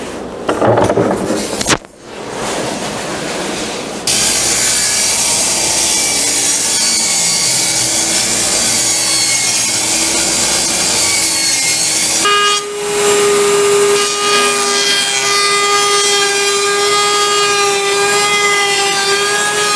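A few handling knocks, then a table saw running and ripping a board. About 12 seconds in it gives way to a Bosch benchtop table saw, whose motor runs with a steady high whine as a strip of trim stock is fed through.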